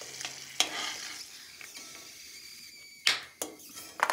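A metal slotted spoon scraping and knocking against a steel kadhai as fried almonds are lifted out of ghee that sizzles faintly, then almonds clattering onto a steel plate. The loudest knocks come about three seconds in and again near the end.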